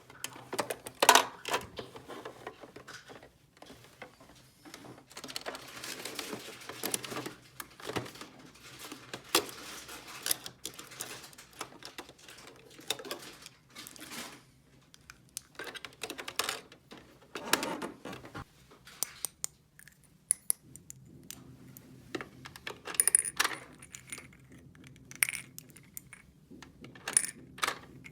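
Small plastic toy pieces clicking and clattering as they are handled and set down, in irregular taps and rattles.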